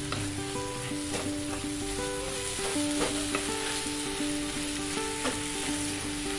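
Wooden spatula stirring and scraping a thick buckwheat-flour puwa in a nonstick wok, with a light sizzle of ghee: the water has cooked off and the ghee is separating from underneath. A few scrapes of the spatula against the pan stand out. Soft instrumental background music with held notes plays over it.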